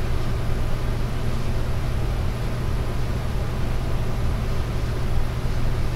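A steady low hum under an even hiss: constant background noise with no separate events.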